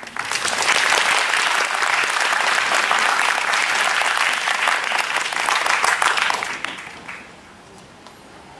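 Audience applauding, starting suddenly and dying away after about seven seconds.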